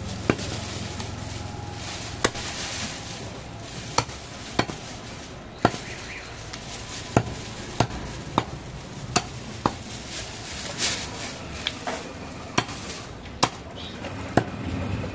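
Butcher's cleaver chopping goat meat on a wooden chopping block: about fifteen sharp chops at uneven intervals, roughly one a second, over steady background noise.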